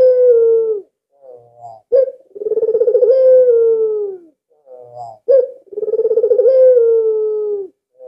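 Albino Barbary dove (white ringneck dove, "puter") cooing: twice a short sharp note leads into a long rolling coo that slides down in pitch at its end, with the tail of an earlier coo at the start.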